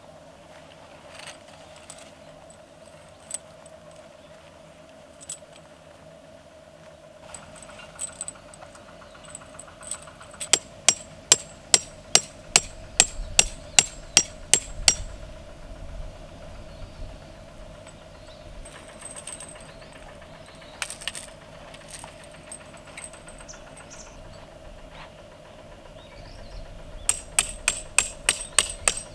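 Tent pegs being hammered into the ground: a run of about a dozen sharp strikes, about three a second, starting about ten seconds in, then a quicker run of about ten strikes near the end. A few lighter taps fall in between.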